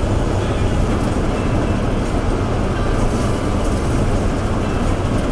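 Combine harvester running while cutting standing grain: a steady, low mechanical drone of engine and machinery, heard from inside the cab.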